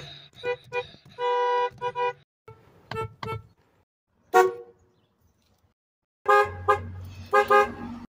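Car horns of a Chevrolet Malibu, a Buick and a Chevrolet Silverado honked in turn, in short beeps and brief blasts. Several beeps in the first few seconds, a single sharp toot about four and a half seconds in, then a run of quick beeps near the end.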